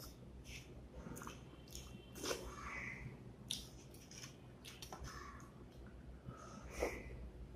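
Wet eating sounds: lip smacks, chewing and fingers scraping up the last curry gravy from a plate. Near the end the plate is tipped to the mouth and the leftover gravy is slurped.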